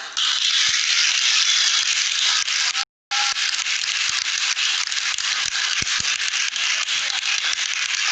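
Dense crackling noise made of many small clicks, with a brief cut to silence about three seconds in.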